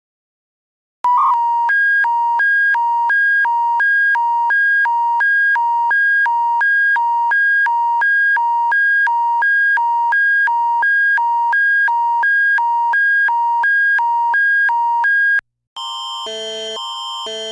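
Canadian Alert Ready attention signal: an electronic alert tone that alternates between two pitches about twice a second, repeating steadily for about 14 seconds before cutting off. After a short gap, a harsher, buzzier multi-tone alarm pattern starts pulsing near the end.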